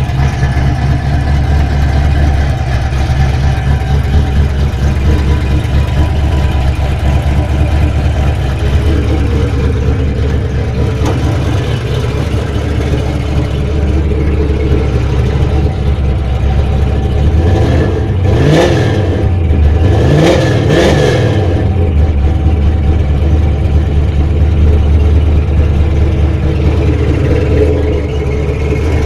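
1979 Chevy Malibu's 383 V8 running at a steady idle, blipped twice with quick revs about two-thirds of the way through, then settling back to idle.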